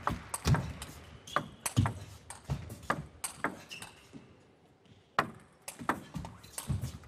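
Table tennis rally: the ball clicking sharply off the players' bats and the table in quick succession. There is a pause of about a second just past the middle before the strikes resume.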